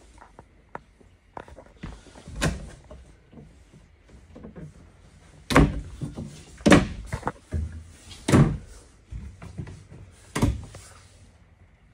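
Cabinet doors in a travel trailer being opened and shut, making about five sharp knocks and thuds with lighter clicks between them.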